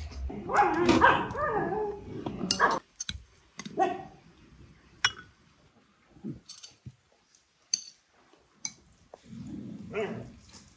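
A dog growling and barking for a couple of seconds near the start, with a shorter, quieter bout near the end. Between them come a few sharp clinks of teaspoons against glass tea cups.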